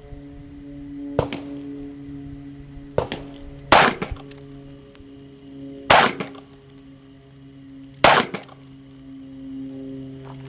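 Handgun shots: five sharp reports, the three loudest about two seconds apart, over background music with held notes.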